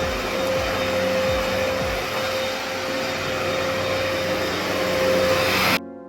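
Vacuum cleaner running steadily, a loud even rush with a steady whine, cut off abruptly near the end as soft music comes in.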